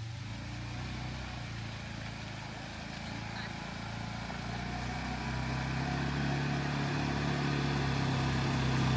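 Vehicle engine running steadily at an even pitch, getting gradually louder.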